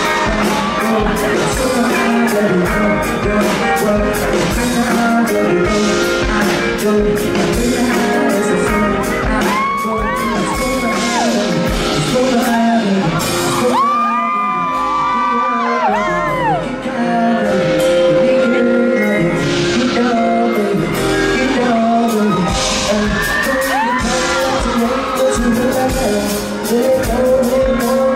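Live song performance: a male vocalist singing into a handheld microphone over a loud amplified backing track with a steady beat. Long held notes slide in pitch about ten seconds in and again around fourteen to sixteen seconds.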